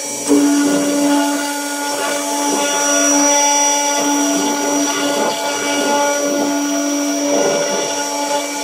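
Gravograph ISIS 800 CNC engraving machine running, its spindle and cutter engraving an anodised aluminium plate: a steady motor whine with a low hum that comes in just after the start and stops about seven seconds later.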